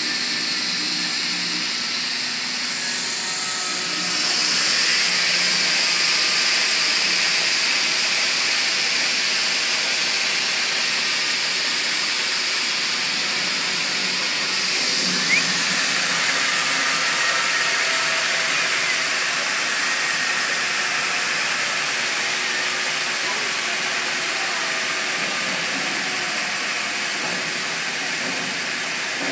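Beach stroke sander running, its long sanding belt travelling over the end pulleys with a steady hissing rush, driven by a 5 hp three-phase motor. It gets louder about four seconds in.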